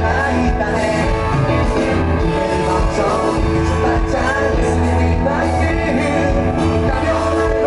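Live band music with singing: a rock-pop band with guitars, bass and drums playing through a club PA, with a lead vocal over the top.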